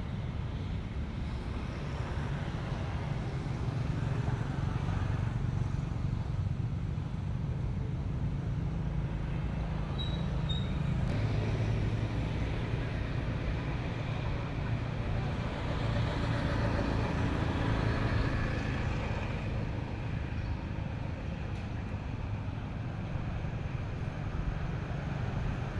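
Steady low background rumble, with two brief faint high chirps about ten seconds in.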